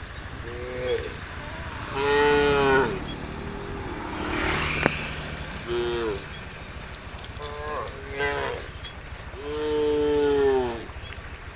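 Cows mooing: about five separate moos, a few short and two long ones, about two seconds in and near the end.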